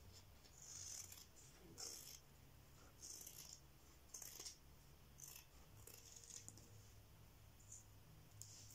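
Scissors snipping through printed fabric: faint short cuts, roughly one a second, with light rustling as the fabric is handled.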